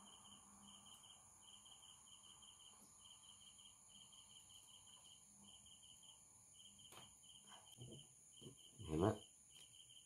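Faint cricket chirping in quick rhythmic pulse trains over a quiet background, with a few light clicks near the end.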